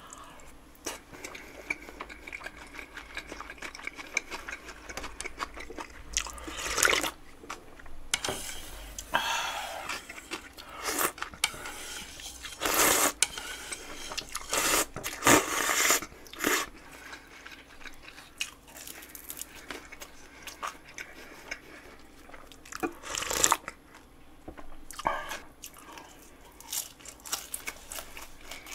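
A person chewing food, with several loud slurps of cold buckwheat noodles (mul-naengmyeon) and broth, the loudest in the middle and again about three-quarters of the way through.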